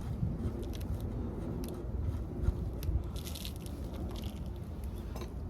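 Scattered small scrapes and clicks, with a crunchy patch about three seconds in, over a steady low rumble.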